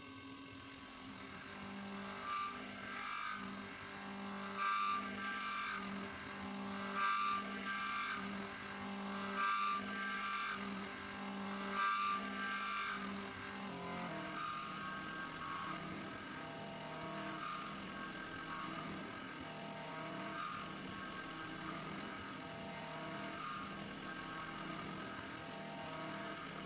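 CNC milling machine spindle driving a thread mill around a bore in a metal block, a steady machine whine with cutting noise that swells in regular surges about every two and a half seconds. About halfway through the tone drops a little and the surges become softer.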